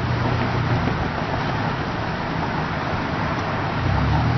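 Steady road noise of a moving car: a low hum under an even hiss, with no horn.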